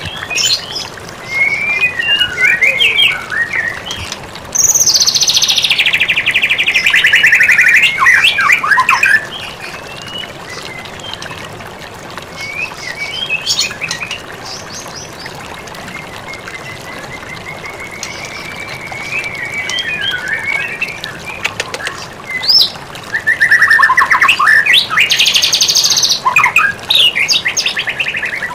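White-rumped shama (murai batu) singing a varied song of whistled and trilled phrases. Two loud, harsh, buzzy phrases sweep downward, one about five seconds in and another near the end, and a long even whistle comes in the middle.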